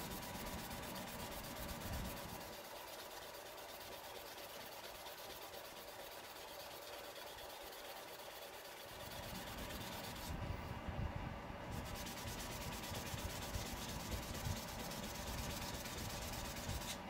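Micro-mesh sanding pad rubbed back and forth over an acrylic pen blank: a faint, steady sanding hiss that grows a little louder about halfway through.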